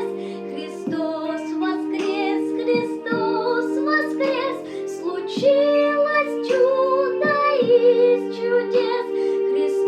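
A high voice singing a song over a steady instrumental accompaniment of held chords.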